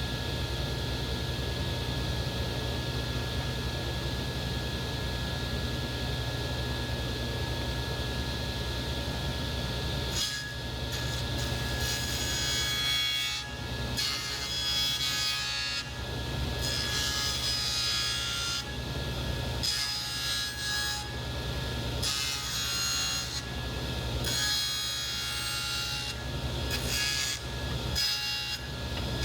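Table saw and dust collector running steadily. From about ten seconds in, the saw blade cuts a rough bevel into the wooden pizza peel blank in a series of passes with short breaks, a harsher hissing that comes and goes over the hum; the cut burns the wood a little.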